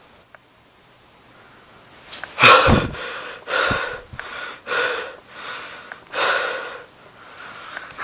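A person breathing hard and gasping right at the microphone: after a couple of quiet seconds, four loud breaths come about a second apart, the first blowing on the microphone.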